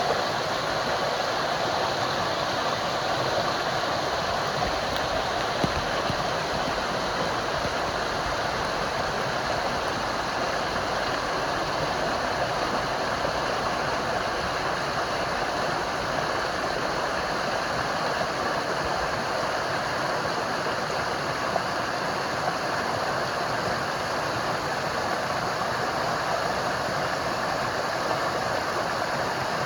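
Running water, a steady even rush without breaks.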